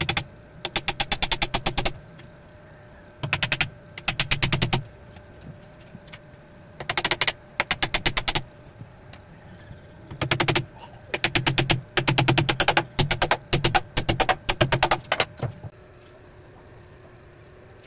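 Claw hammer tapping nails into a 3/4-inch plywood door panel in about a dozen quick runs of rapid strikes, roughly nine a second, stopping near the end.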